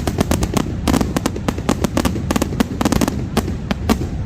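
Fireworks finale: a rapid, irregular barrage of bangs and crackles, several a second, over a continuous low rumble.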